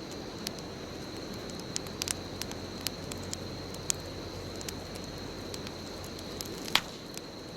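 Bonfire burning: a steady low rush of flames with sharp, scattered crackles and pops from the burning wood, the loudest pop near the end.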